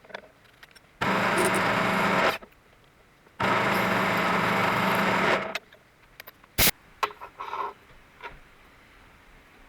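Two bursts of compressed air from a blow gun, the first about a second and a half long and the second about two seconds, each starting and stopping sharply. A sharp click follows, then a few light knocks.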